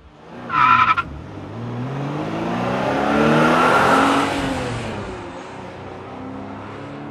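Car sound effect: a short, loud tyre squeal, then an engine revving up, swelling to a peak about midway and easing off as it fades.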